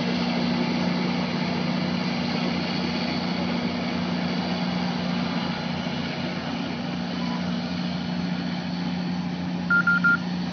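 Caltrain diesel locomotive running with a steady low drone. Near the end, three short high beeps sound in quick succession, louder than the engine.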